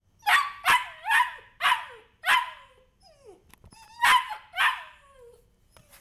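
German Shepherd puppy giving short, high barks: five in quick succession, then after a pause two more, each with a falling pitch at its tail, like a puppy talking back.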